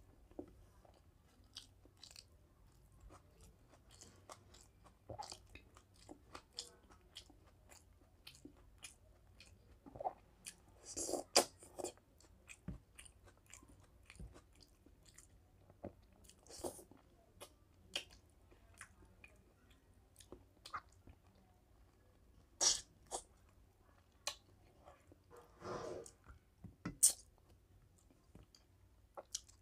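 Close-up mouth sounds of eating rice and mutton curry by hand: chewing with many small wet clicks, and a few louder bursts about 11, 23 and 26 seconds in.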